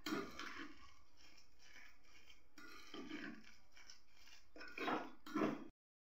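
Metal spoon stirring and scraping a thick puffed-rice, gram-flour and egg mixture against a glass bowl: a few soft scrapes and squelches, cutting off abruptly near the end.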